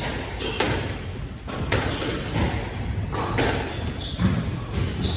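Squash rally: the ball cracks sharply off rackets and the court walls in a series of hits, with short high squeaks of sneakers on the wooden floor, echoing in the enclosed court.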